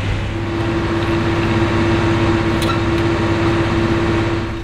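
Steady drone of airport apron machinery, with a steady whine setting in just after the start and stopping near the end.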